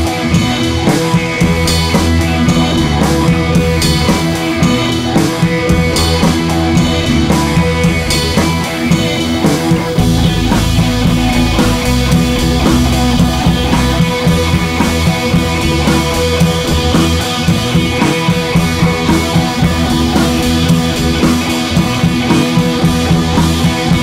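Background rock music with drum kit and guitar and a steady beat.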